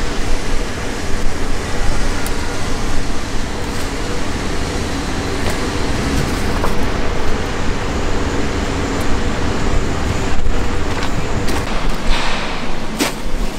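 Steady rumble of a fishing boat's engine with wind noise on the deck, and a few sharp knocks near the end.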